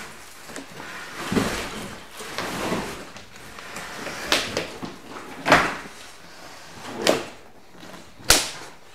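A pinball machine cabinet being shifted across cardboard out of its shipping box: cardboard scraping and rustling, then about four sharp knocks and thumps in the second half.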